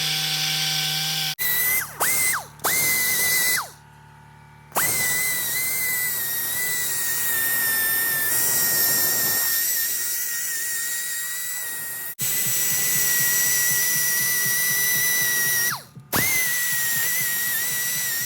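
High-speed handheld rotary power tool whining at a steady high pitch, switched on and off several times, winding down in pitch at each stop, with a pause of about a second near the 4 s mark.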